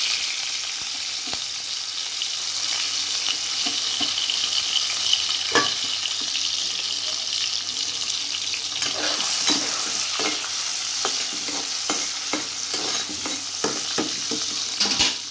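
Prawns frying in hot oil in a pan, a steady sizzle throughout. In the second half a spatula turning them knocks and scrapes against the pan again and again.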